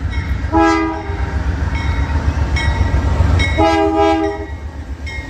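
Union Pacific diesel freight locomotives passing close by, their engines rumbling heavily. The lead unit's multi-chime air horn sounds a short blast about half a second in and a longer blast about three and a half seconds in.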